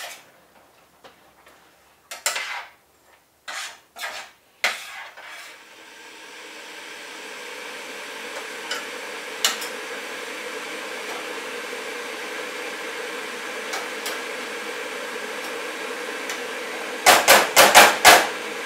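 Metal utensil knocking and stirring in a frying pan of curry. A few separate clanks come in the first seconds, then a steady hiss with a faint hum builds up and holds. A quick run of loud clanks comes near the end.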